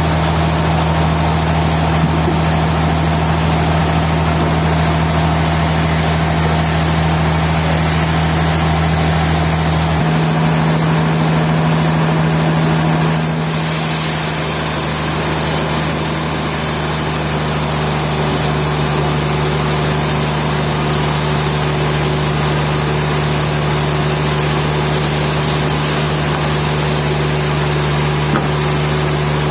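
Sawmill machinery running steadily with a loud, engine-like hum. The low hum shifts about ten seconds in and again around thirteen seconds in.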